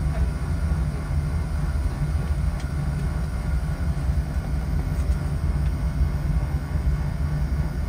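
Oil-fired boiler's burner firing steadily, a low, even rumble from the flame and burner blower.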